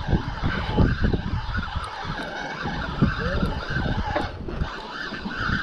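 Wind buffeting the microphone in uneven low gusts over a steady wash of choppy sea.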